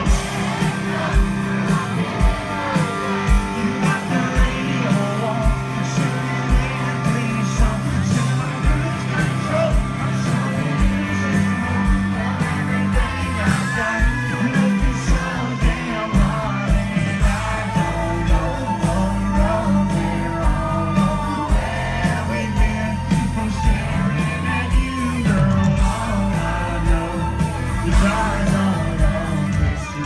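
A live country band playing amplified music with a steady beat about two a second, while a male singer sings into a handheld microphone, heard from the crowd right at the front of the stage.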